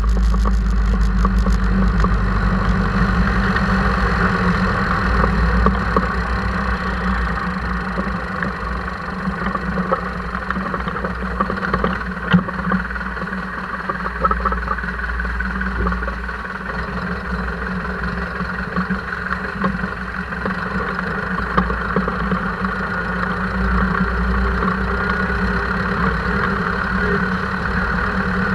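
Zetor tractor's diesel engine running steadily as it drives, heard close to its upright exhaust pipe. It is somewhat quieter in the middle stretch and picks up a little near the end.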